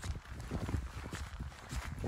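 Hiking boots stepping along a wet, stony mountain footpath, about two footsteps a second.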